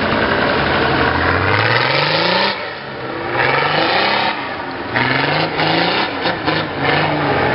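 Off-road truck's engine revving hard under load as it climbs a steep muddy slope, the pitch rising in surges and falling back between them several times.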